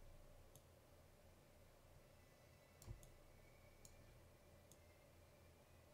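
Near silence: room tone with about five faint, brief computer mouse clicks spread through it, the loudest a little before the middle.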